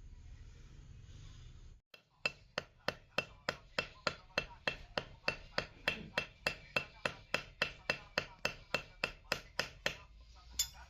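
Hammer blows on metal, struck at an even pace of about three a second, each with a short metallic ring. The blows start about two seconds in and stop near the end.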